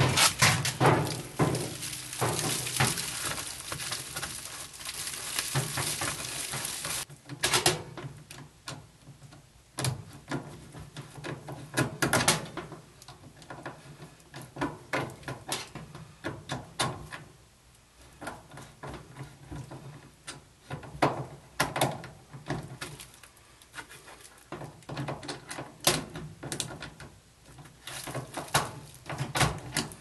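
Flexible aluminium-foil dryer vent duct crinkling and rustling as it is worked onto the dryer's exhaust outlet, with scattered clicks and knocks from the duct clamp being fitted and tightened. The dense rustling stops about seven seconds in, after which the sounds are mostly separate clicks and taps.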